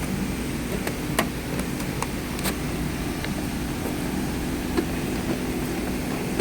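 Steady low hum of a shop machine or fan, with a few sharp metallic clicks as tools are handled in a toolbox drawer.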